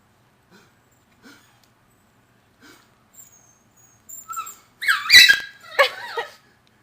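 A puppy bursts into loud, excited yelping barks about five seconds in, after a few faint short sounds. This is its frenzied reaction to people sneezing.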